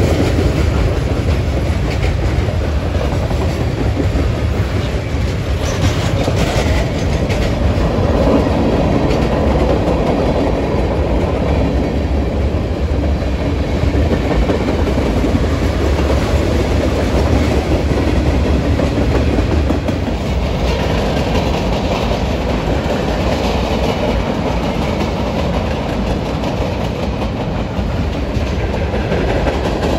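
Norfolk Southern manifest freight train's cars rolling past on the rails: a loud, steady rumble of wheels on track that eases slightly about two-thirds of the way through.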